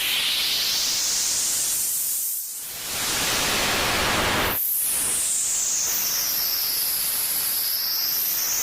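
Television static: a steady loud hiss with brighter bands of hiss sweeping slowly up and down in pitch. It dips briefly about two and a half seconds in and changes abruptly near the five-second mark.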